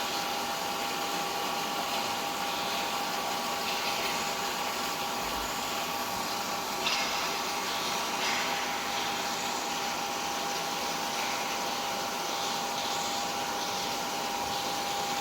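Aluminium melting furnace running: a steady rushing noise with a constant high hum over it.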